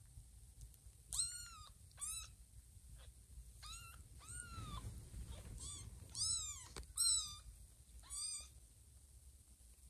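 Newborn kittens mewing: a string of about eight short, high-pitched mews, each rising then falling in pitch.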